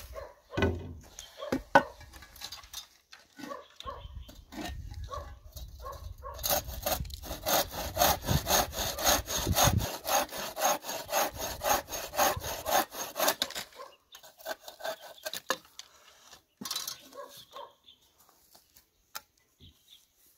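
Wooden frame saw with a twisted-rope tensioner cutting through a wooden board, in steady back-and-forth strokes about three a second, loudest in the middle. A few sharp knocks come first as the board is set in place.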